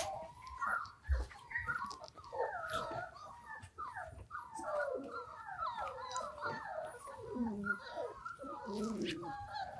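Young German Shorthaired Pointer puppy whining in a nearly unbroken string of short calls that waver up and down in pitch.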